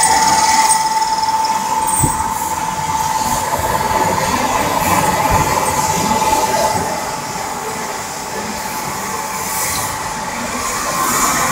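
Bore honing machine with a multi-station rotary table running: a steady mechanical noise with a high whine that fades about two-thirds of the way through, and a few short knocks.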